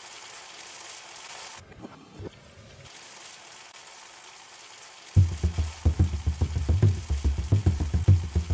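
Chicken karahi curry sizzling in a wok, a steady high hiss that drops away briefly about two seconds in. About five seconds in, a loud, deep pulsing music beat comes in over it.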